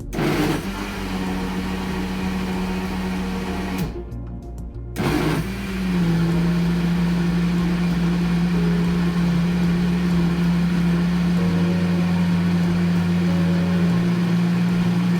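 Electric kitchen blender running, blending a mango and yogurt shake with a steady motor hum. It stops briefly about four seconds in, then starts again and runs on at a slightly lower pitch.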